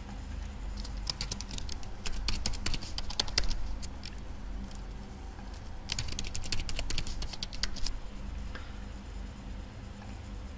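Typing on a computer keyboard: two short runs of quick keystrokes with a pause of about two seconds between them, as a password is typed and then typed again to confirm it.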